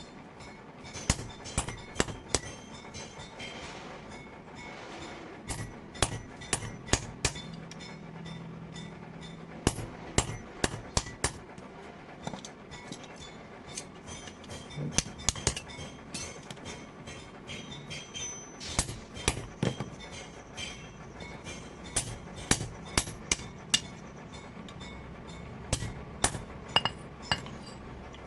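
Hammer blows on metal over an anvil: a long run of sharp, ringing metallic strikes, irregular and often in quick clusters of two to four.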